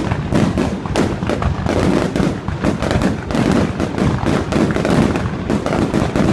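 Fireworks display going off: a dense, continuous run of overlapping bangs and crackles with no pause.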